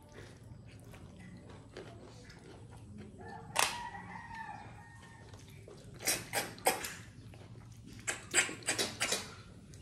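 Sharp, wet slurps as snails are sucked out of their shells, in two quick runs of three to five near the middle and near the end. About a third of the way in, a loud slurp is followed by a drawn-out animal call in the background, held for about a second and a half.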